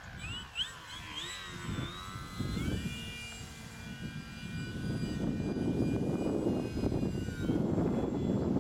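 Electric motor and propeller of a Multiplex Park Master 3D model aerobatic plane whining in flight, the pitch jumping up and down with throttle for the first couple of seconds, then held steady. Wind rumble on the microphone grows louder in the second half.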